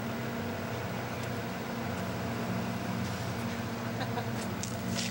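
Steady low engine hum of a city bus idling at the curb, under general street traffic noise, with a few faint clicks near the end.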